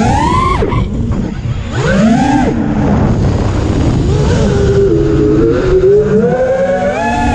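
Brushless motors of a 6S FPV quadcopter whining with throttle. The pitch surges up and falls back twice in the first few seconds, then holds a steadier, lower tone, over wind rumble on the onboard camera's microphone.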